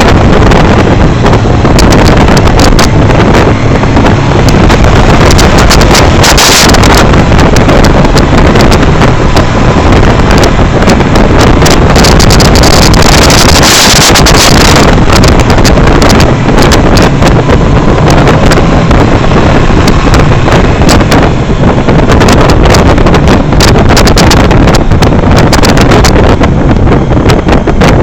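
Loud wind buffeting on the microphone from a motorcycle riding at road speed, over engine and road noise.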